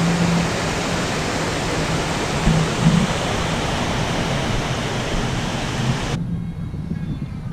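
Rushing water, a loud steady roar of a torrent or waterfall that cuts off abruptly about six seconds in, with a low steady hum underneath.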